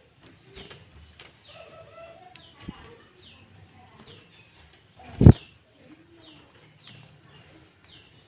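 Sooty-headed bulbul (kutilang) singing: short falling chirps repeated over and over, with a few lower warbled notes between them. One loud thump about five seconds in.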